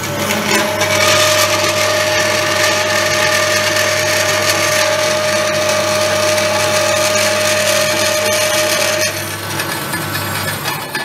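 Jet variable-speed bandsaw cutting 4 mm 12C27 stainless steel plate: a steady whine and hiss of the blade in the cut. The steady cutting tone stops and the noise drops a little about nine seconds in.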